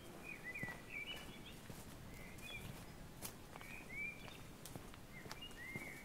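Footsteps along a walking path, the walker's steps landing as sharp short knocks, with small songbirds giving short chirping calls every second or so.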